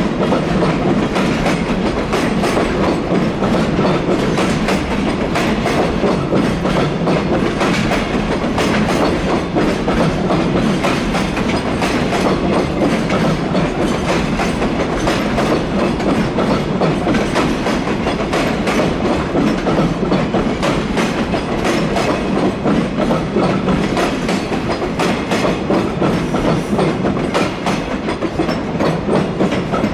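Long freight train rolling steadily past at speed, its wagon wheels clacking over the rail joints in a dense, continuous run of clicks.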